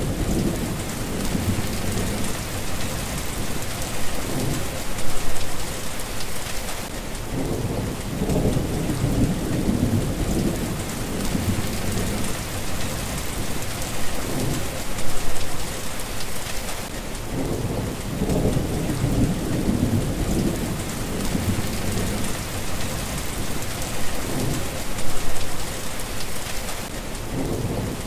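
Steady rain falling, with low rolling thunder that swells and fades over and over. Three brief louder peaks come about ten seconds apart.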